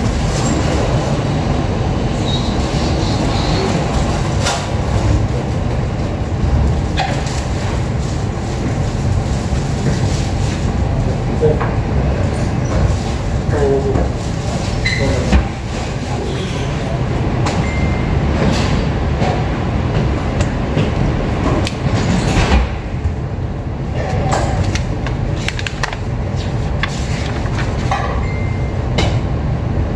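A steady low rumble throughout, with scattered short knocks and clicks.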